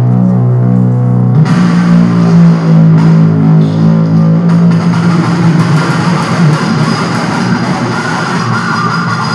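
Strings on a homemade wooden post instrument, amplified through a small guitar amplifier. A steady low drone about a second and a half in turns suddenly into a louder, rougher, buzzing wash of plucked string sound.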